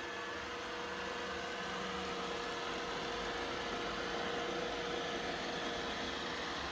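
iRobot Roomba 960 robot vacuum running, a steady whir of its vacuum motor and brushes.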